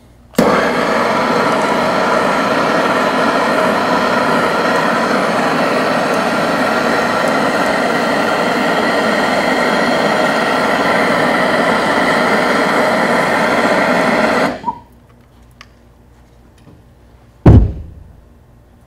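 Uniweld HT44 hand torch running on MAP/propylene gas: it lights with a click and burns with a steady rushing hiss for about fourteen seconds, heating an aluminum coil tube to brazing temperature. It then shuts off abruptly. A few seconds later comes a single sharp thump.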